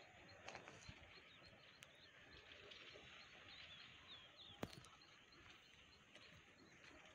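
Faint open-air ambience with distant small birds chirping, and one sharp click about four and a half seconds in.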